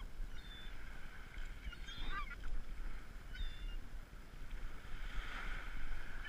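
Gulls calling in a few short squawks, with a steady low rumble underneath.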